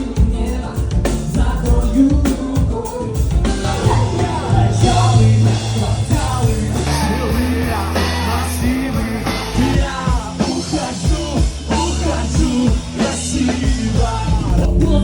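Live cover band playing an upbeat rock song: a lead vocal over drums and bass, with a held low bass note through the middle.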